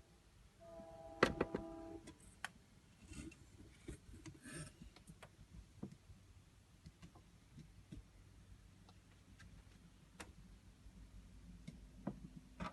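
Hanabi pachislot machine: a short electronic beep tone with a sharp click about a second in, then scattered faint clicks and taps.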